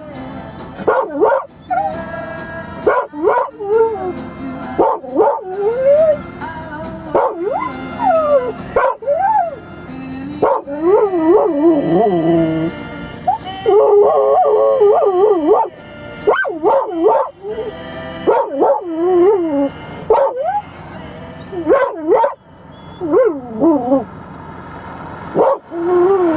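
A dog howling and whining in repeated wavering cries that slide up and down in pitch, mixed with short yips.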